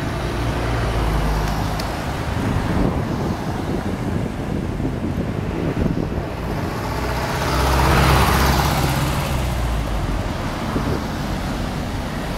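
Street traffic: cars driving past close by, the loudest passing about eight seconds in, over a low engine hum.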